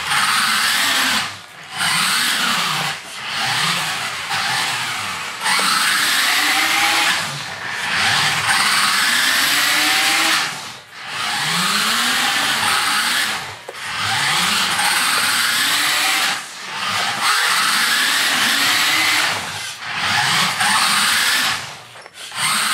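Small electric motor and gearbox of a vintage toy-grade 4WD RC hopper buggy, whining in repeated throttle bursts of a few seconds with short breaks between them. Its pitch rises and falls as the car speeds up and slows.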